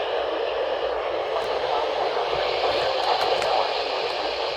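Weather radio receiver giving a steady static hiss, with no voice coming through.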